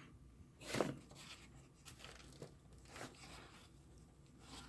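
Faint rustling and a few light clicks from a screwdriver-bit tool roll being handled, with the loudest rustle about a second in.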